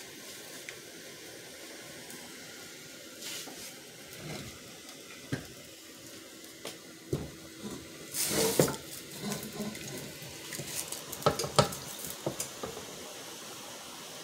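Metal pots and a spoon knocking and clattering, with wet sloshing, as a seafood boil in butter sauce is moved into a bigger pot. The clatter comes in scattered knocks, with busier bursts about eight and eleven seconds in.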